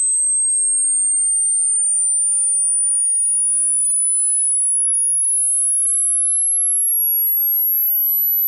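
A single pure, very high-pitched sine tone rising slowly and evenly in pitch at a steady level: a hearing-test sweep that climbs toward the top of the hearing range to show how high a listener can still hear.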